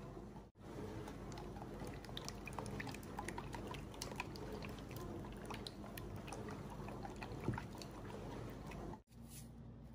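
Beaten eggs being stirred by hand in a bowl, a wet sloshing with many small clicks. Oil is poured into the eggs partway through.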